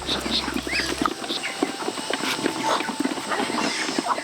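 Farm poultry calling: a dense run of short chirps and clicks, with a low hum in the first second.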